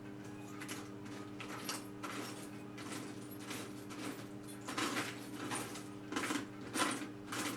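Small metal hardware clinking and rustling as bolts are rummaged through by hand, in irregular short clicks, over a steady low hum.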